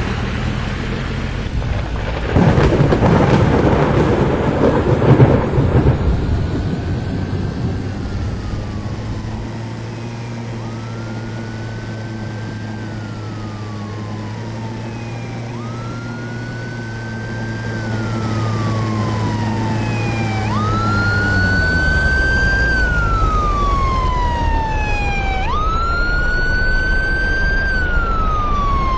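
A loud thunder crash about two seconds in, rumbling off over several seconds. Then a siren starts wailing, rising quickly and falling slowly about every five seconds and growing louder toward the end. A steady low hum sits underneath for a while in the middle.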